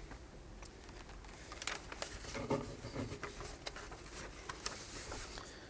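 Movement at a lectern: scattered small clicks and rustles, with a louder knock about two and a half seconds in, as one speaker steps away from the microphone and the next steps up to it.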